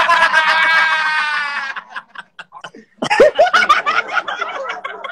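A voice held on one long, loud cry for nearly two seconds, then after a short pause people laughing, heard over a live video call.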